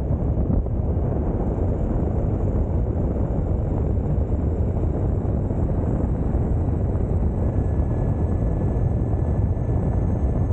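Steady low rush of wind across the microphone at riding speed, mixed with the rumble of an electric mountain board's tyres rolling on asphalt.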